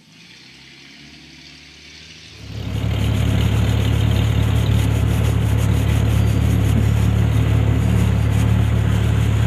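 A vehicle engine idling steadily close by, loud from about two and a half seconds in, after a quieter stretch of engine noise.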